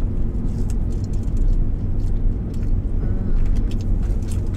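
Steady low rumble of a running car heard from inside the cabin, with faint clicks and crunches of fried chicken strips being chewed.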